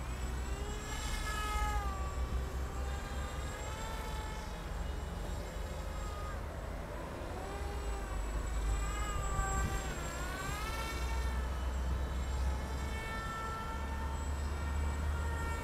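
Electric motor and propeller of an RC Factory Crack Wing foam delta RC plane whining in flight, the pitch rising and falling repeatedly as it passes and the throttle changes. Wind rumbles on the microphone underneath.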